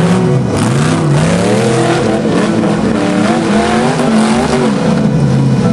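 Off-road 4x4 engine revving hard, its pitch climbing and dropping again and again as the throttle is worked.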